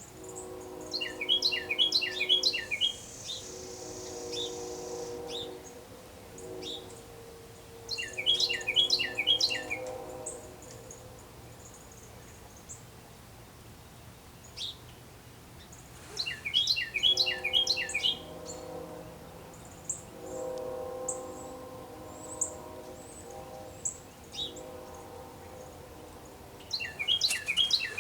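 A Carolina wren sings its loud rolling song of quickly repeated phrases, four times about eight seconds apart. Under it a train whistle sounds several held chord blasts with pauses between them.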